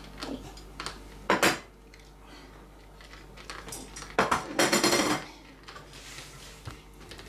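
Dishes and cutlery clinking and clattering: a short, sharp clatter about a second in and a longer ringing rattle about four seconds in, with small clicks between.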